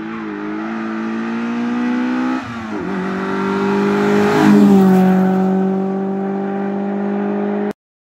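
Suzuki Swift rally car's engine accelerating hard toward and past, its pitch climbing, with a short break in the revs about two and a half seconds in as it shifts up, then pulling again. It is loudest as it passes about halfway through, with a drop in pitch, then holds a steady note until the sound cuts off suddenly near the end.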